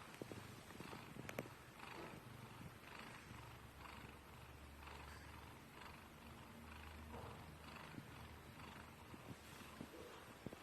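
A sleeping domestic cat purring softly, the purr swelling and fading about once a second with its breathing.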